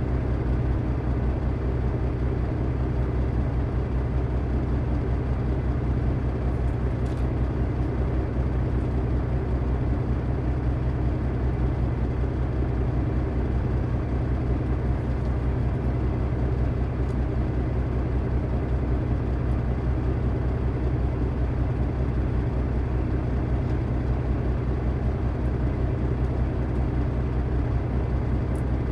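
Diesel engine idling steadily, a low even rumble, with a few faint clicks over it.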